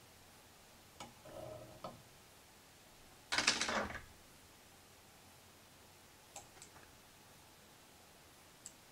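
Faint clicks and small taps of fly-tying tools at the vise: a whip finisher working the thread, then scissors at the hook eye, with a small click near the end. About a third of the way in comes a short, loud, breathy rush, the loudest sound.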